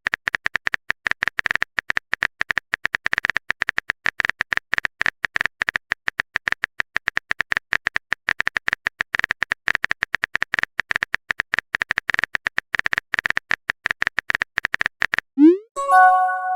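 Phone keyboard typing sound effect: rapid, irregular clicks, several a second, stopping near the end. A short rising swoop and a chime-like message tone follow.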